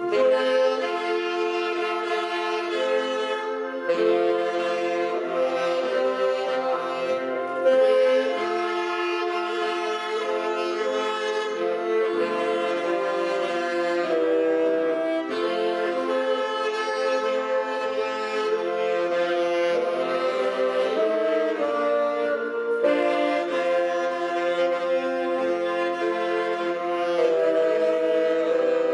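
Saxophone ensemble playing a slow hymn in several-part harmony, with long held chords that change every second or two.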